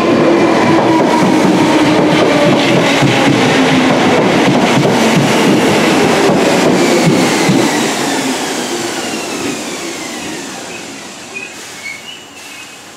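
Merseyrail Class 507 electric multiple unit running into the station and slowing: a whine falling in pitch and wheels clicking over the rail joints. The sound fades away over the last few seconds.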